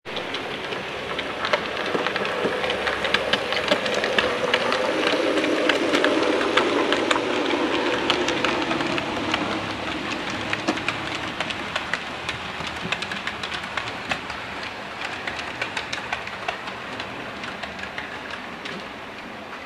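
Model railway train running on the layout's track: a steady rattle of wheels clicking over the rail joints with a motor hum underneath. It grows louder about two seconds in as the train passes close by, then fades through the second half.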